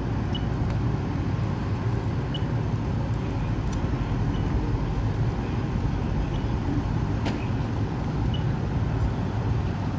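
Steady low rumble of a fire engine's diesel idling at the scene of a car fire, with a few faint sharp pops scattered through it.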